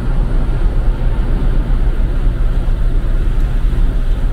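Deep, steady rumble and hum of a large car ferry's diesel engines and funnel exhaust, with a noisy rush over it on the open deck.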